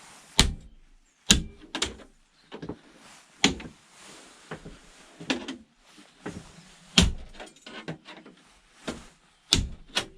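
Repeated sharp knocks and cracks, about a dozen at irregular intervals, as an old computer monitor's plastic casing is forced apart.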